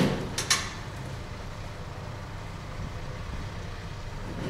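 Steady low background rumble of street traffic, with two sharp clicks about half a second in.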